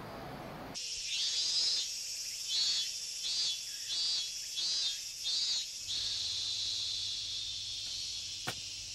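A chorus of cicadas droning high and steady, with one call pulsing over it roughly every three-quarters of a second until partway through. It starts abruptly about a second in, and there is a single sharp click near the end.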